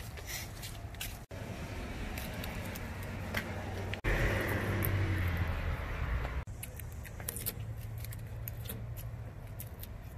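Outdoor background noise: a low rumble with scattered faint clicks, broken off abruptly about a second in and again about four seconds in, and louder for a couple of seconds after the second break.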